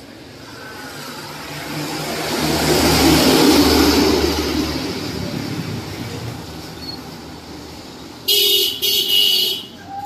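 A road vehicle passes, its engine and tyre noise swelling to a peak and then fading. A few seconds later a vehicle horn sounds twice in quick succession.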